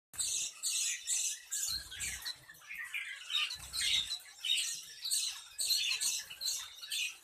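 Bengalese finches chirping: short, high calls repeating about twice a second, with a couple of soft low thumps.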